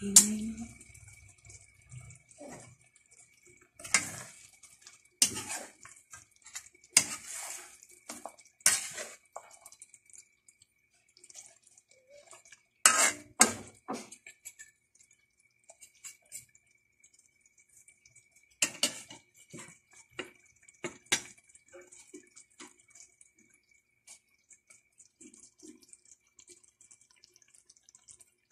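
A metal utensil knocking and scraping against a wok as a chicken and pineapple stew is stirred, in irregular clusters of strokes that thin out near the end, with the sauce sloshing and bubbling between strokes.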